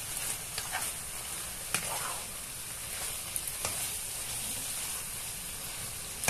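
Shredded chicken filling sizzling steadily in a frying pan while it is stirred with a spatula, with a few soft scrapes in the first half.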